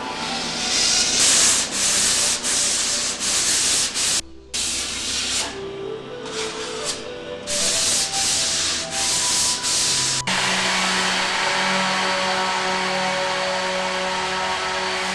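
Hand sanding with a flat sanding board on the filled surface of a steel boat hull: loud, rhythmic rasping strokes, about one and a half a second, with a short break about four seconds in, merging into a continuous rasp from about ten seconds in. Quiet background music plays underneath.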